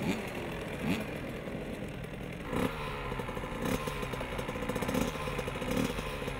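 Small two-stroke youth motocross bikes: a few short revs, then a steady idle with occasional blips of the throttle.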